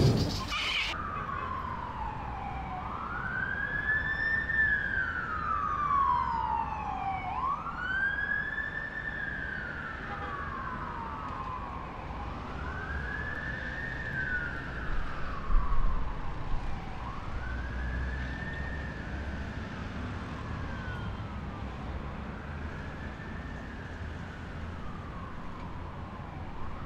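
A siren wailing, its pitch slowly rising and falling about every five seconds and growing fainter toward the end, over a low rumble. A short burst of noise comes just before it at the very start.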